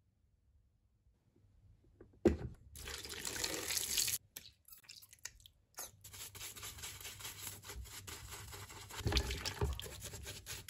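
After about two seconds of near silence, water splashing in a plastic tub, then a sponge scrubbing the nail puller's rusty steel tube in soapy water, with a louder scrubbing patch near the end.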